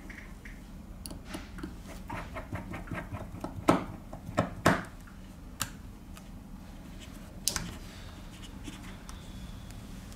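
Light ticks and clicks of small phone parts and repair tools being handled, with a quick flurry of faint ticks and then a few sharper clicks about four seconds in.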